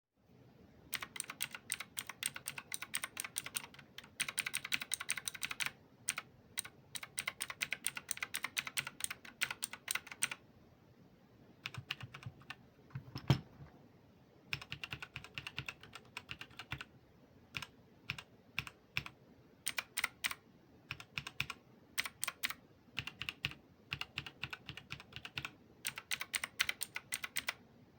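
Typing on the GMNG XK1 mechanical keyboard with red linear switches: quick runs of key clicks in bursts with short pauses between them. About halfway through there is one heavier, deeper knock.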